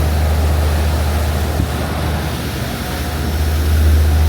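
Boat underway: a steady low engine rumble under an even rush of wind and water, growing a little louder near the end.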